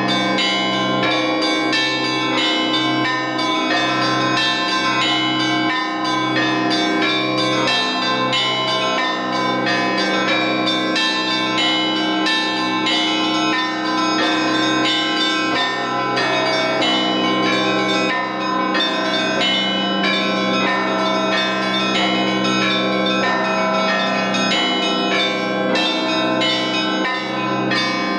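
Russian Orthodox church bells rung by a bell ringer: a large low bell strikes about once a second under quick repeating patterns on many smaller bells, all ringing on continuously.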